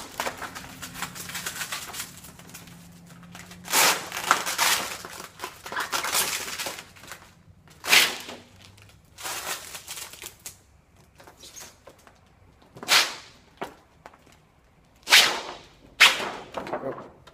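Hand pump spray bottle squirting water onto security window film in a string of short, irregularly spaced hissing bursts.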